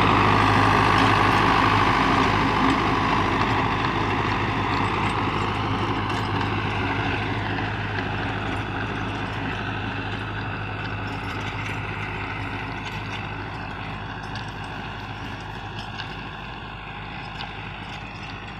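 Diesel engine of a Russian-built 510 tractor running steadily under load while pulling a rotavator through the soil. It fades gradually as the tractor moves away.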